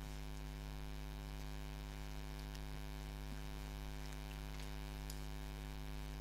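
Steady electrical mains hum with many evenly spaced overtones, low in level and unchanging.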